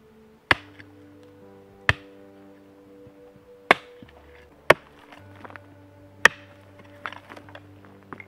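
A mattock chopping into hard, stony clay soil, five sharp strikes about a second or two apart, followed near the end by lighter scraping and crunching of loose soil and stones being dragged down. Soft background music with sustained notes plays underneath.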